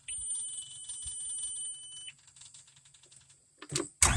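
JCB skid steer loader's cab warning buzzer sounding a steady high-pitched tone for about two seconds on key-on. Near the end the starter engages briefly and the engine cranks and catches.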